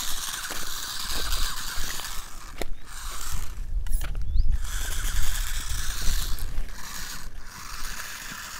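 Small geared DC motors of a homemade RC car whirring with a gear grind. The whirring runs in stretches and stops briefly a few times. A low rumble sits under it through the middle.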